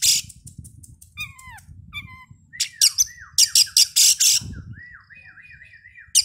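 Oriental magpie-robin (kacer) singing loudly. Harsh rasping notes alternate with clear whistles that fall in pitch. In the second half a quick run of short, repeated down-slurred whistles plays under the harsh notes.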